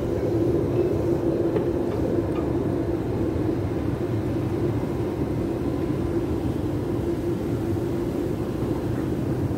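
Escalator running: a steady mechanical drone with a held low hum.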